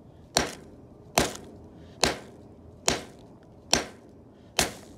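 Claw hammer striking chunks of bismuth metal through a plastic bag to break them up: six sharp blows, evenly spaced a little under a second apart.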